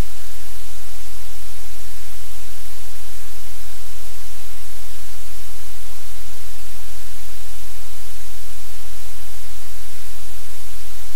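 Loud, steady static hiss with a constant low hum beneath it: noise on the livecam's audio feed.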